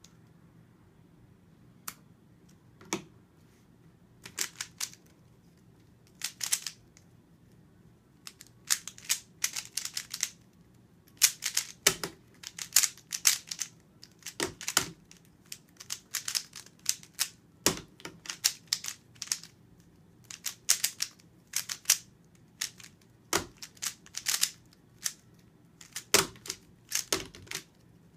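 A plastic 3x3 speedcube turned one-handed, its layers clicking and clacking. There are a few scattered turns at first, then quick bursts of turns with short pauses between them.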